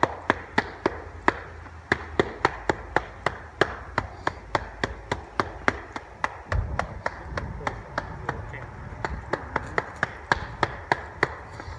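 Rapid, fairly steady tapping, about three to four sharp taps a second: gloved hands tapping a rubber stamp texture mat down onto fresh, powder-released concrete to press the slate texture into the edge.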